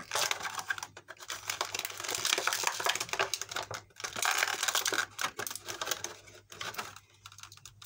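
Plastic blister packaging and cardboard of an action figure crinkling and crackling as hands work it open, with short pauses, falling off near the end.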